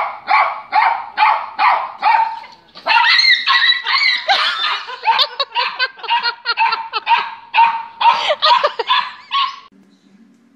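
A small dog barking over and over, first in a steady run of sharp barks about two and a half a second, then faster and more excited. The barking stops about a second before the end.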